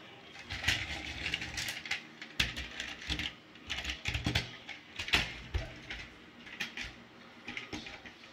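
Plastic toy truck and toy cars being handled and rolled on a tabletop: irregular clicks, rattles and knocks of plastic wheels and bodies, thinning out near the end.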